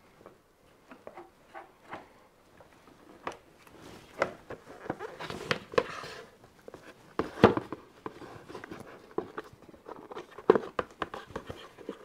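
Two hard plastic halves of a washing machine soap dispenser box being handled and lined up by hand: scattered light clicks and knocks of plastic on plastic, with some brief rubbing about five seconds in and a louder knock about seven and a half seconds in. The halves have fresh sealant on their joining faces, ready to be snapped together to reseal the leaking box.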